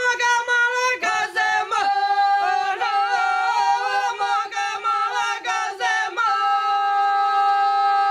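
Three women singing ojkavica, the traditional unaccompanied Croatian folk singing style with shaken, throat-trilled notes. The voices waver and shake through the middle, then settle into a long held note from about six seconds in.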